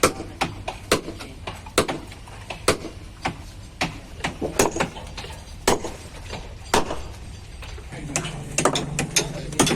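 Hammer blows on a wooden boat hull, sharp irregular strikes about two a second, over a steady low machine hum; a low steady motor tone joins about eight seconds in.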